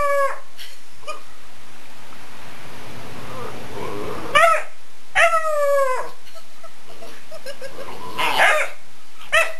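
Bluetick coonhound puppy barking and howling in a few separate calls. The longest, about five seconds in, slides down in pitch. A steady hiss runs underneath.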